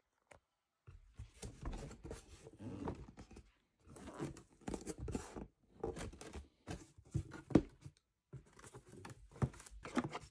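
Cardboard box and its packaging being opened and handled: scraping, tearing and rustling of cardboard and paper in uneven stretches with short pauses, and a few sharp knocks, the loudest a little past halfway.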